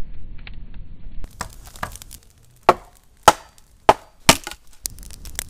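Wood being chopped with a blade: a few lighter knocks, then four hard chopping strokes about half a second apart.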